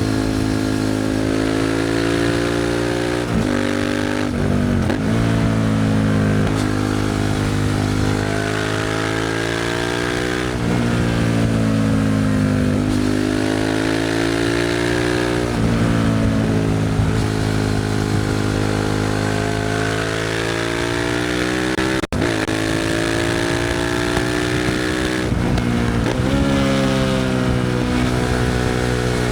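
Suzuki SV650's 90-degree V-twin through an aftermarket Leo Vince exhaust, riding and repeatedly accelerating: the engine note climbs, drops sharply and climbs again several times as it is revved and shifted. There is one momentary break in the sound about two-thirds of the way through.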